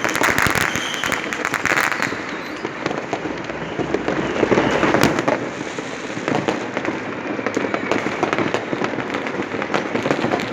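Many fireworks and firecrackers going off at once: a dense, continuous crackle of overlapping pops, a little louder about four to five seconds in.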